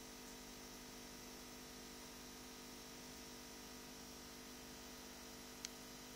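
Faint steady electrical mains hum with a light hiss, and one brief click near the end.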